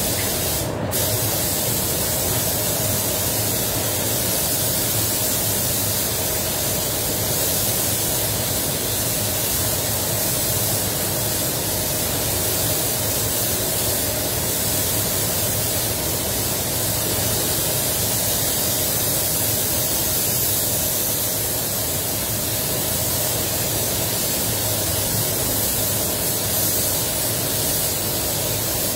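Air-fed paint spray gun hissing steadily as it sprays base coat onto a car bumper, coming on about a second in and running without a break, over a steady low rumble.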